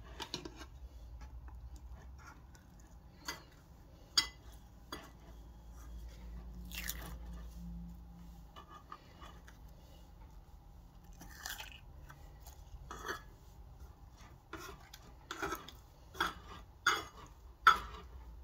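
Glossy slime and foam beads being squished and mixed by hand, giving irregular wet crackles and pops that come thicker and louder near the end.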